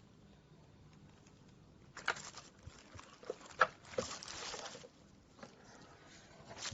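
Handling noises: two short stretches of rustling, with a few sharp clicks and knocks between them.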